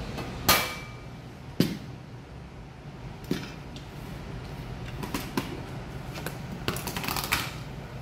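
Metal kitchen tongs and a ladle clinking and knocking against a cooking pot and a ceramic bowl: a scatter of sharp clinks, the first, about half a second in, the loudest and briefly ringing, with a quicker cluster near the end. A steady low rumble from the simmering pot runs underneath.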